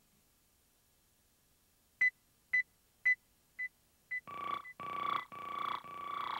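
Electronic music: after about two seconds of near silence, five short high synthesizer beeps about half a second apart, growing fainter, then a repeating pulse of lower synth tones that swells in from about four seconds in.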